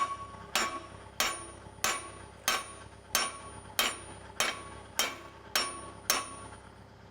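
A hammer beating on a steel excavator pin, about 2 5/8 inches thick, to drive it out of the boom and thumb. There are eleven even, sharp blows, about three every two seconds, each with a short metallic ring.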